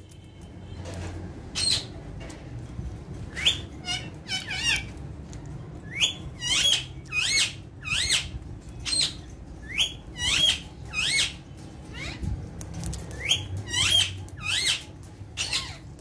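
Alexandrine parakeets squawking: short calls that rise and fall in pitch, repeated about once or twice a second, starting about two seconds in.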